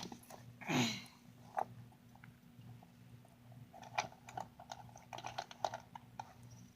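Scattered light clicks and taps of small objects being handled, with a short falling vocal sound about a second in, over a faint steady hum.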